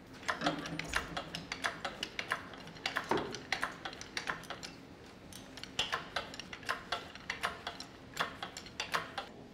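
Hydraulic engine hoist (cherry picker) being pumped by hand to raise a heavy load, with sharp clicks and clanks in irregular clusters as the handle is worked.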